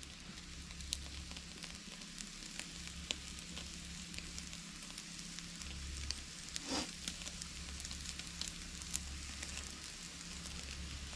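Thick bone-in tomahawk steak sizzling as it sears over direct heat on a charcoal grill grate above glowing coals, a steady hiss with scattered crackles and pops. One louder brief hiss comes about two-thirds of the way in.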